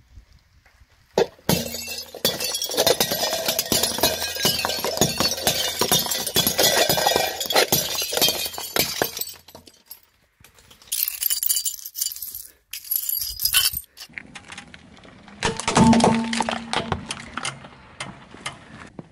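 A car tyre rolling over brittle white disposable plates, which crack and shatter into shards with a long run of sharp crackling and snapping. A few shorter bursts of cracking follow later.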